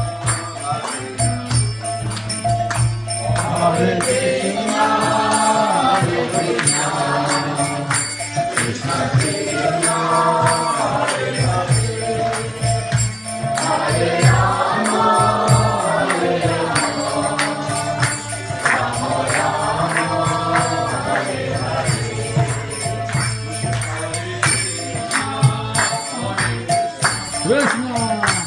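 Devotional group chanting, a kirtan, with small hand cymbals jingling a steady beat under the sung phrases.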